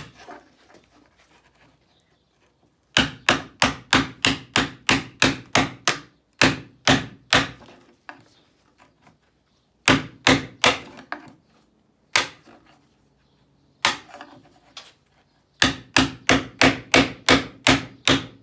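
Hammer striking a 5-in-1 painter's tool, used as a chisel to knock a broken piece off a wooden nightstand. The sharp knocks come in quick runs of about three a second, with a few lone strikes between the runs.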